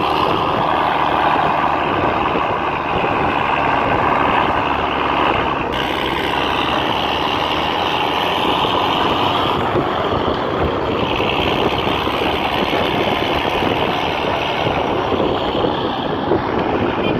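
Mercedes-Benz Unimog's diesel engine running steadily as the truck drives off-road, heard from its open cargo bed.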